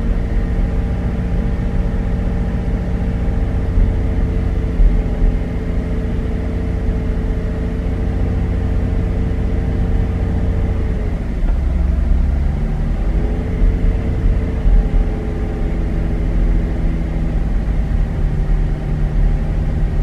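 Chevy Traverse's 3.6-litre V6 held at a fast idle around 1,500 RPM, with occasional pops and hesitations from a misfire on cylinder 4, which the owner suspects is a worn spark plug. The engine note sags briefly about eleven seconds in and then comes back up.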